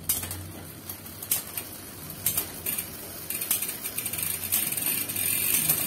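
Bicycle drivetrain running on a stand: a 10-speed chain turning over a 9-speed 11-32 cassette and a Shimano Altus M2000 rear derailleur's 13T pulleys, with irregular clicking and clattering as it shifts, thickening toward the end. The clatter is the shifting glitch, which the owner can't pin on his derailleur tuning, the 10-speed chain or the 13T pulleys.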